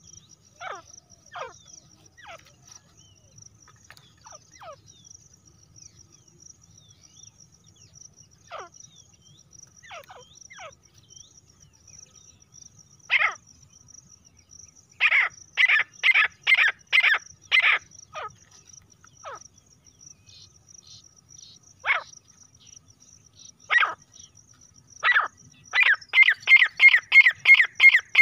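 Female grey francolins calling: short, sharp calls that drop steeply in pitch, scattered at first. About halfway through comes a run of about six loud calls, roughly two a second, and near the end a fast, loud series of about three calls a second. A steady high insect trill runs underneath.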